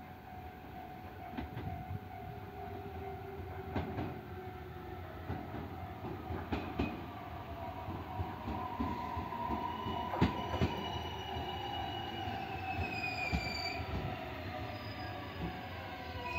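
JR 255 series electric multiple unit running into a station and slowing. Its wheels click over rail joints, with high thin squeals and a whine that falls in pitch near the end as it brakes.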